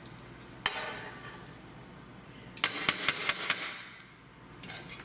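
Kitchen utensils clinking and knocking against a pot and pan: one ringing clank early in, then a quick run of sharp clinks around the middle, and a couple of softer ones near the end.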